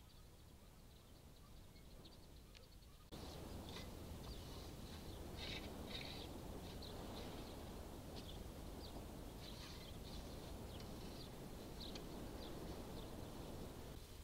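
Faint outdoor ambience with small birds chirping in short, repeated calls in the background. A louder, even rustling noise starts suddenly about three seconds in.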